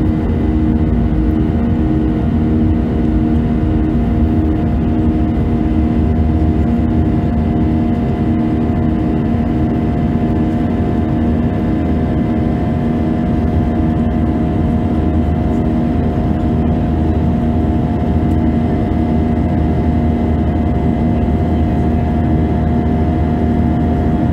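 Airbus A320 jet engines heard from inside the cabin, over the wing, during the climb after takeoff: a steady rumble and rushing roar with a few steady hums, one of them pulsing slowly.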